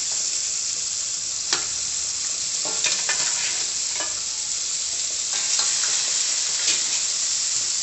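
Crabs frying in hot oil with sautéed onion, ginger and garlic, sizzling steadily. A utensil knocks against the pan and shells a few times at irregular moments as they are stirred.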